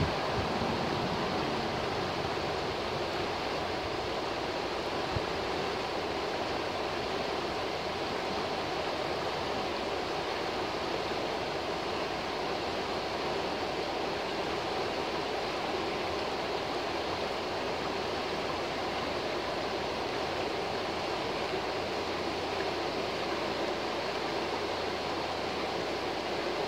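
A forest river running fast over shallow rapids and rocks: a steady, even rush of water.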